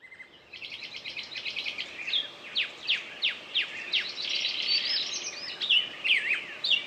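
Songbirds singing: a run of rapid chirps, then quick falling whistled notes and warbling phrases, over a steady background hiss.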